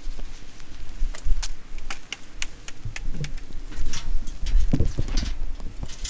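Irregular metal clicks and clanks of tie-down strap and hook hardware being worked on a car-hauler trailer, over a steady low rumble.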